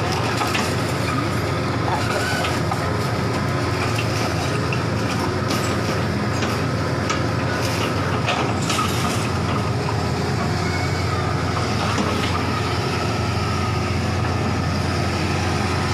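Hitachi hydraulic excavator's diesel engine running steadily under load, with cracking and clattering of brick and concrete rubble as the bucket works through the debris; the clatter thins out after about ten seconds.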